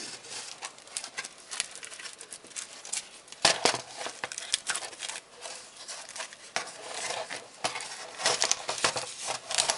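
Plastic shrink-wrap around a new cylinder head gasket crinkling as it is cut open with scissors and handled, an irregular crackling that gets louder about three and a half seconds in.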